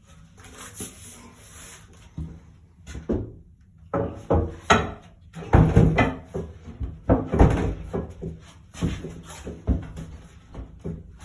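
Wood being handled: a series of irregular knocks and scrapes.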